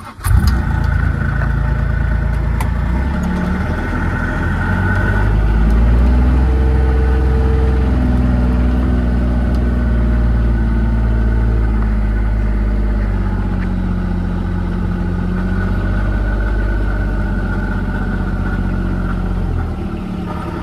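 Car engine running steadily, its pitch shifting a little as it goes. It comes in abruptly at the start, is louder from about five seconds in, and eases near the end.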